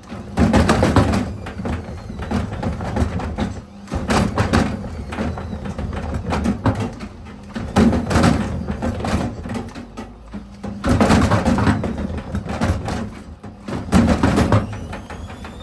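Elin front-loading washing machine running with its door open, wet clothes thudding and banging in the drum in irregular knocks every second or two. A rising motor whine starts near the end.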